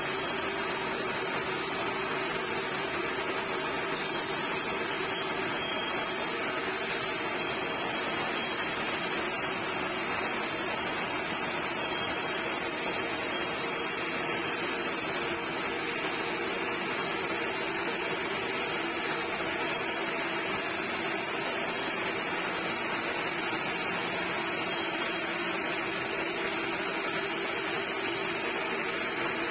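Straight-line steel wire drawing machine running: a steady mechanical hum and whir of its motors and capstan drums, with several faint held tones.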